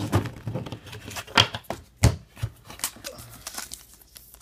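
Trading cards being handled: a string of light, irregular clicks, taps and slides of card stock as cards are sorted and squared up.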